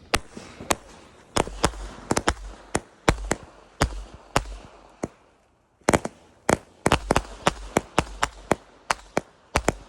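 Firework cake going off: a rapid, irregular string of sharp bangs, several a second, with a short break about five seconds in before the shots start again.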